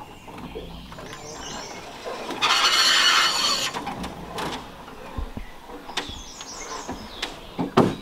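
Reeds and grass scraping along the hull of an aluminium boat as its bow pushes into a muddy bank: a loud rustling scrape lasting about a second, followed by a few scattered knocks.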